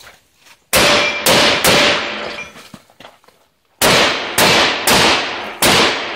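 Benelli M2 semi-automatic shotgun firing seven shots: three quick shots about half a second apart, a pause of about two seconds, then four more in quick succession, each trailing off briefly.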